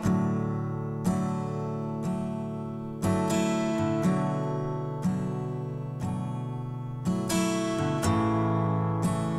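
Background music: acoustic guitar strumming chords about once a second, each chord ringing and fading before the next.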